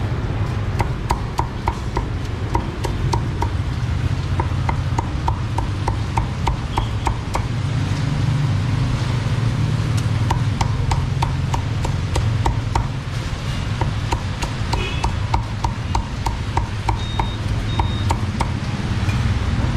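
Meat cleaver chopping Vietnamese roast pork (heo quay) on a thick round wooden chopping block. It strikes in rapid, even runs of about four to five knocks a second, with short pauses between runs, over a steady low hum.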